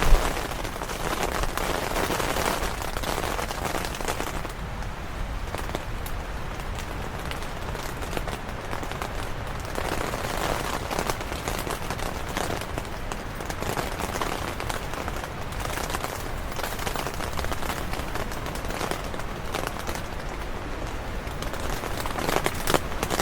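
Rain falling on a tent's fabric walls in a thunderstorm, with wind gusts shaking the tent so the sound swells and fades.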